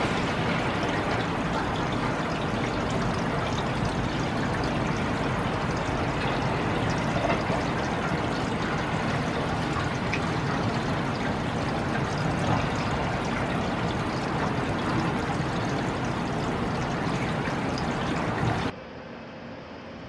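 Demolition excavator at work on a brick building: steady diesel engine rumble under a rushing clatter of crumbling masonry, with a few small knocks of falling debris. A little over a second before the end the sound drops abruptly to a quieter, duller steady machine noise.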